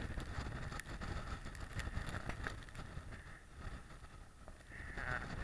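Wind buffeting the camera's microphone, a low, uneven rumble, with a few faint clicks.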